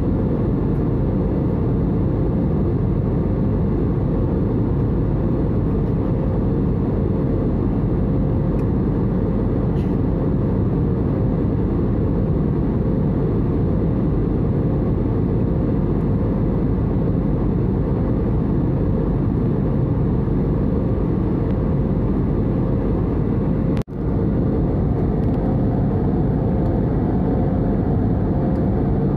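Steady cabin noise of a jet airliner in cruise, heard from a seat over the wing: deep, even engine and airflow noise with a faint steady hum. It breaks off for an instant near the end.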